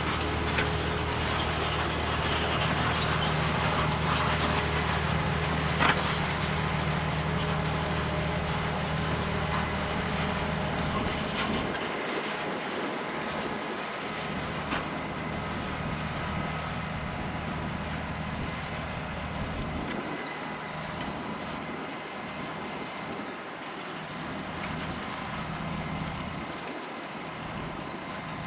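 John Deere 7280R tractor's diesel engine running steadily while ploughing, with clatter mixed in. About twelve seconds in its low hum falls away and then comes and goes, and the overall sound slowly gets quieter. A sharp click near six seconds.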